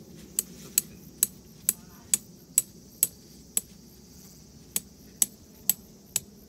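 Steady hammer blows, about two a second: eight strikes, a short pause, then four more.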